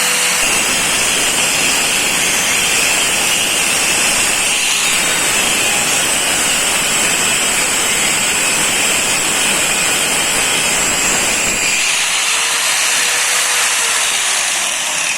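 4-inch FISCH TG 8100CE variable-speed angle grinder running at full speed with its disc grinding against a workpiece: a loud, steady, hissing grind with a thin high whine on top that drops away a few seconds before the end.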